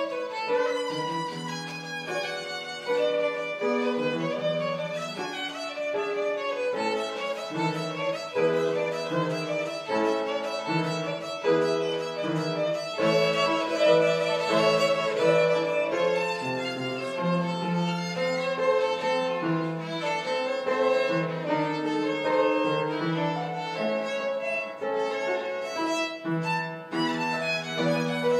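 Violin playing a tune without pause, one note quickly following another.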